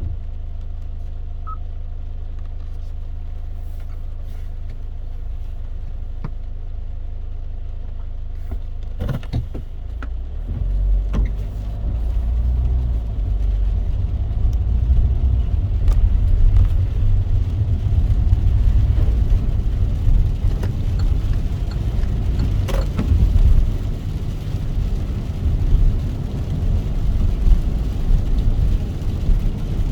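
Car driving in the rain: a steady low engine hum for the first few seconds, then, about ten seconds in, a louder low rumble of engine and tyre noise as the car gets under way, with scattered light taps that fit raindrops.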